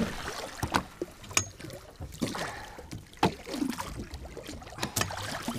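Water lapping and sloshing against the side of a small boat's hull, with half a dozen scattered sharp knocks and clicks.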